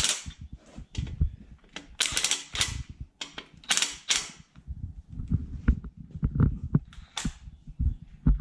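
Hand-tool work on a small-block Chevy engine being assembled: irregular metallic clicks and knocks, with several short hissing bursts.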